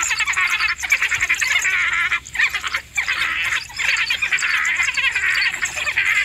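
African wild dogs twittering: a dense, continuous run of high chirping and squeaking calls, broken by a few short pauses near the middle.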